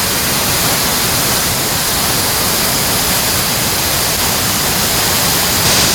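Stream water rushing: a steady, loud, even rush with no breaks.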